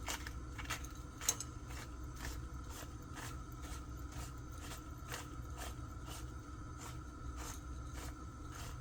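Egg frying in hot oil in a pan: irregular small crackling pops throughout, over a steady low hum.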